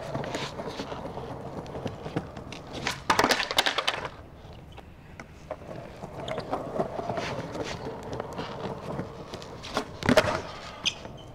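Skateboard wheels rolling on concrete, with a loud clatter of board impacts about three seconds in as a 360 flip (tre flip) is attempted: the tail popping and the board hitting the ground. The wheels roll on, and another sharp smack of the board on concrete comes near the end.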